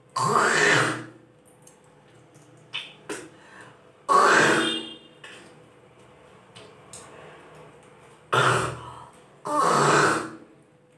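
A woman hawking and retching from the throat, four loud rasping hawks of about a second each: one at the start, one around four seconds in, and two close together near the end.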